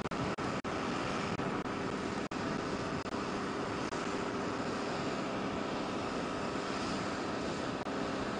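Aircraft engines running steadily: an even roar of noise with a faint steady hum in it, cut by a few brief dropouts in the first couple of seconds.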